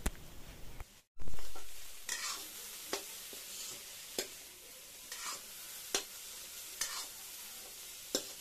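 Boiled chickpeas and diced potato sizzling in oil in a steel pan while a metal spatula stirs them, scraping the pan about once a second. Just after a brief dropout about a second in, a louder burst of sizzling rises and fades.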